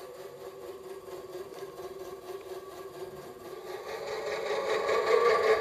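Small electric motor of a Lionel 44 toy speedboat running steadily with a whine of several held tones, getting louder about four seconds in.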